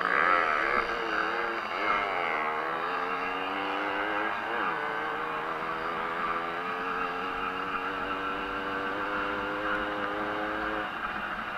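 50 cc two-stroke racing moped engine at full throttle, its pitch dipping twice in the first few seconds, then rising slowly and steadily before dropping away near the end as the throttle is shut.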